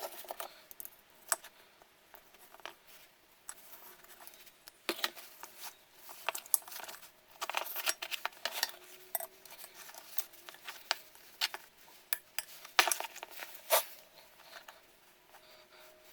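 Hand-working a small engine's recoil starter and its pull cord: scattered light clicks, clinks and rustling, irregular throughout.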